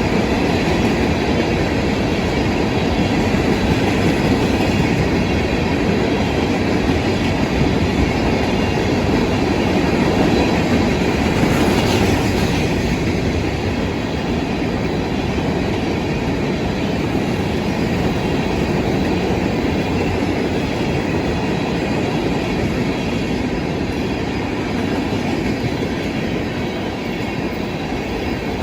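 Freight train cars rolling past, a steady rumble of steel wheels on the rails that eases off slightly near the end.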